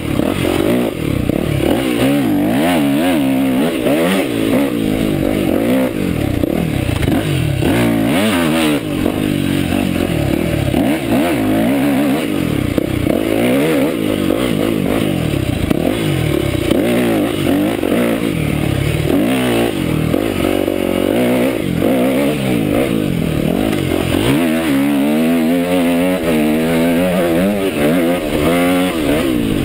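Dirt bike engine revving up and down as it is ridden along a trail, its pitch rising and falling with throttle and gear changes.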